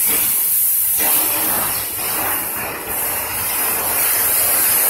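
Car-wash pressure wand spraying water and foam onto a car body, a steady hiss that eases briefly between two and three seconds in.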